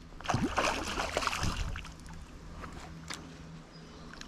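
A hooked brown trout splashing at the river's surface as it fights the line: a run of loud splashes in the first couple of seconds, softer water movement, then splashing again at the end.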